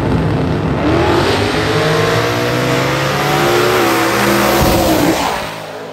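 Drag race car engine at full throttle making a pass down the strip, its pitch climbing about a second in and holding high, then fading near the end as the car pulls away.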